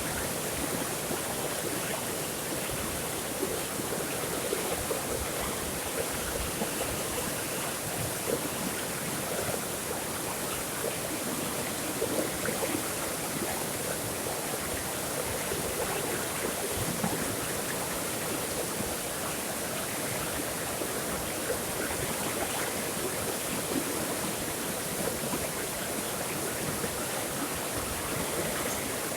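Running water flowing steadily, a continuous rush with small splashes throughout.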